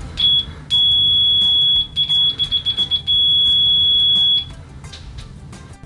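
Extech MN35 multimeter's continuity beeper sounding a steady high-pitched tone, the signal that its probe tips are shorted together and continuity is found. The beep stutters rapidly in the middle, then holds steady again until it stops about four and a half seconds in. A sound level meter reads it at 67.8 dB.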